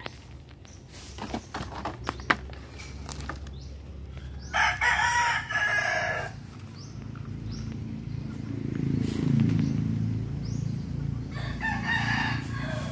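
A rooster crowing twice: a loud crow of under two seconds about four and a half seconds in, and another near the end. Light ticks and rustles in the first few seconds, and a low rumble that swells and fades in between.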